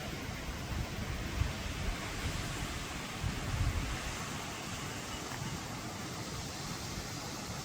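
Steady rushing of a waterfall, with low rumbles of wind on the microphone that swell briefly a little after three seconds in.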